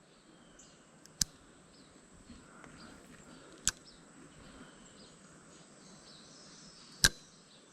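Faint outdoor ambience with three sharp, short clicks spaced a few seconds apart, the last one the loudest.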